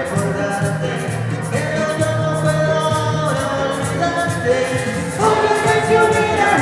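Live band music: male and female voices singing together over keyboard accompaniment and a steady percussion beat.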